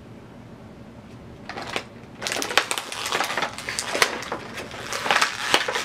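Plastic toy packaging crinkling and crackling as it is handled and torn open by hand. It starts about a second and a half in and gets denser and louder from about two seconds in.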